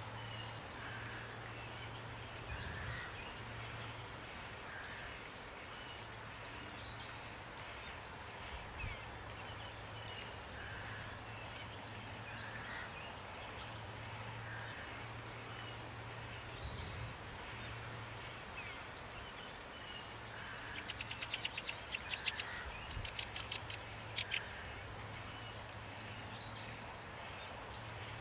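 Steady rain hiss with small songbirds chirping throughout in short, high, quick notes, and a fast trill of repeated notes about three-quarters of the way through. A low steady hum runs underneath.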